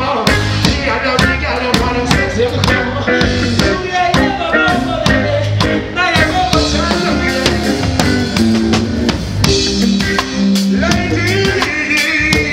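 Live reggae band playing a steady drum-kit beat with bass and electric guitar.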